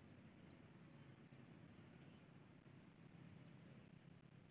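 Near silence: faint outdoor ambience, a low steady rumble with a few faint, short, high chirps.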